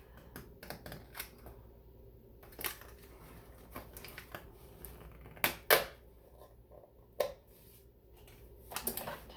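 Scattered sharp clicks and knocks of a plastic gallon milk jug being handled and opened. The loudest are two close together about five and a half seconds in.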